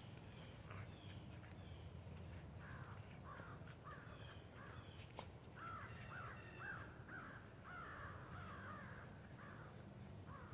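Faint animal calls: a quick run of about a dozen short, harsh calls starting a couple of seconds in, over a low steady hum.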